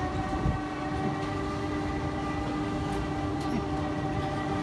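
Fabbri Booster thrill ride's drive running as the arm swings round: a steady mechanical drone of several held tones over a low rumble.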